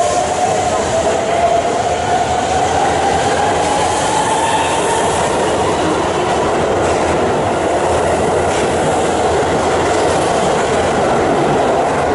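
Keihan electric train running through the station, the steady rumble and clatter of wheels on rail under a motor whine that rises in pitch over the first few seconds as the train gathers speed.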